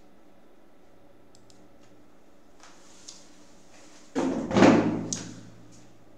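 A few faint mouse clicks, then about four seconds in a sudden loud thud that dies away over about a second.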